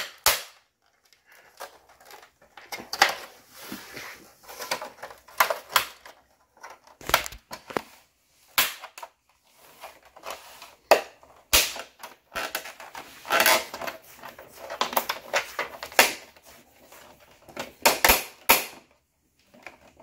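Plastic snap clips of a Lenovo ThinkCentre M820z all-in-one's back cover popping loose one after another as the cover is pulled off by hand. It makes a string of sharp snaps at irregular intervals, with plastic rubbing between them.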